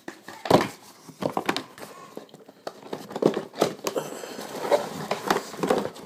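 Camera box packaging being handled and unpacked: cardboard and paper rustling and crinkling, with irregular knocks and scrapes, the loudest about half a second in.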